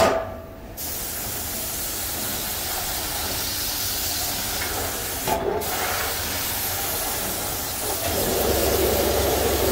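Gravity-feed compressed-air spray gun hissing steadily as it sprays paint onto a steel motorcycle seat base. The spray starts about a second in and breaks off briefly about five seconds in. A low hum joins near the end.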